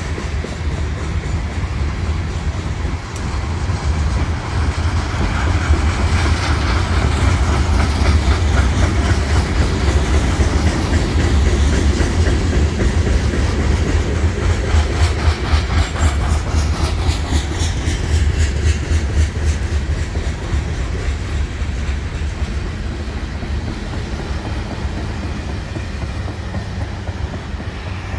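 Loaded coal hopper cars of a CSX freight train rolling past: a steady rumble with wheels clicking over the rail joints, loudest midway and fading near the end as the last cars move off.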